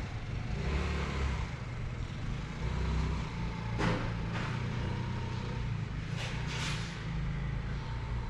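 A motor vehicle's engine idling with a steady low rumble, with a sharp knock about four seconds in and two lighter clicks a little after six seconds.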